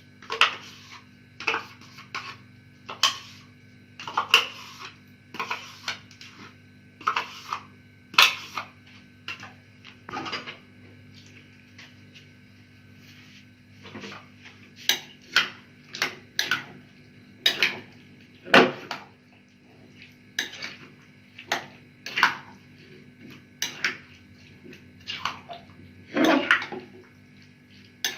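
A spoon clinking and scraping against a bowl in short strokes, about one a second with a brief lull midway, as yogurt is spooned in and the fruit salad is mixed.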